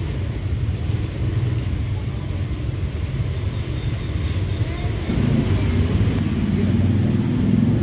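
Outdoor ambience: a steady low rumble with faint voices, growing louder and fuller about five seconds in.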